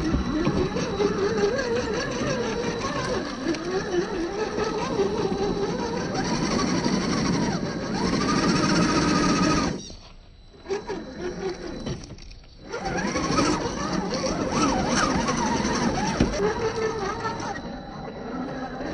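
Electric motor and gear drivetrain of a 1/10-scale RC crawler whining, its pitch rising and falling with the throttle. It drops away briefly twice, about ten and twelve seconds in.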